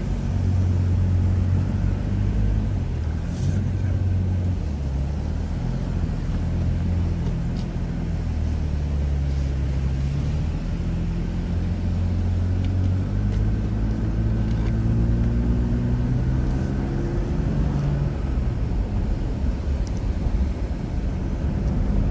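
A four-wheel-drive vehicle's engine runs as it drives through soft beach sand, heard from inside the cab. It makes a steady low drone whose pitch shifts a little and rises gently about two-thirds of the way through.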